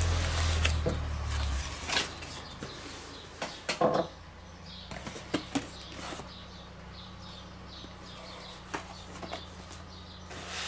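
Cardboard shipping carton being opened and unpacked: flaps rustling and short crackles and knocks as the packed boxes are handled, loudest about two and four seconds in. A low hum stops about a second and a half in, and faint bird chirps come through behind.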